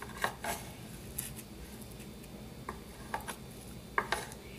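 Spoon scraping and tapping against the grill plates of an electric sandwich maker as it lifts the edge of a cooking crepioca: several short, light scrapes and clicks.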